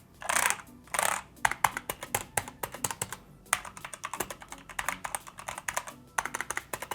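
Keys being typed on a Gamepower Ogre RGB mechanical keyboard with linear Outemu red switches: a quick, irregular run of clacking keystrokes, several a second, with a few heavier, longer strokes near the start.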